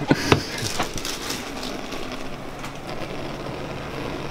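Steady low hum of a running electric motor, with a couple of short knocks in the first second.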